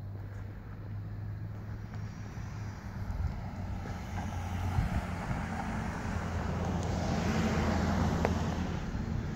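A steady low motor hum, with a rushing noise that swells to its loudest near the end and then eases.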